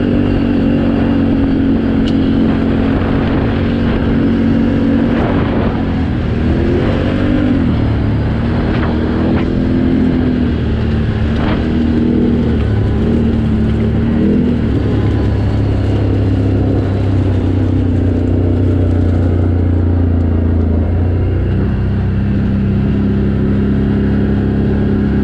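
A twin-cylinder engine of an off-road vehicle runs under way over rocky, loose gravel, its pitch rising and falling with the throttle. It settles to a steadier note in the second half, with a few short knocks along the way.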